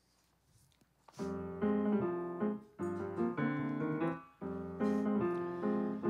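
Steinway grand piano playing the introduction to a song: after about a second of hush, a series of struck chords that ring on between strikes.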